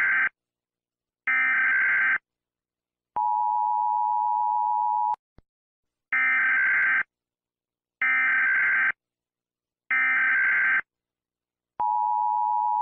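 Electronic emergency-alert tones: a beep about a second long repeating about once every two seconds, broken twice by a lower, steady tone of about two seconds, the second near the end. A faint click about five seconds in.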